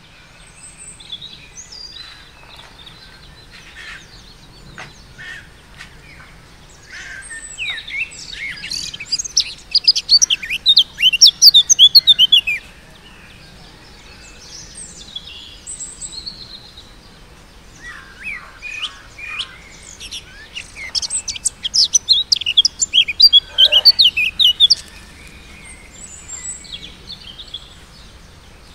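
Songbirds singing in two loud bouts of rapid, high chirps, the first about a third of the way in and the second about two-thirds through, with faint scattered calls in between.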